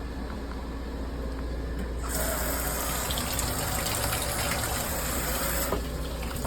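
Water running and splashing from plumbing under test, much louder from about two seconds in until shortly before the end; the water is coming through a pipe that is not even connected.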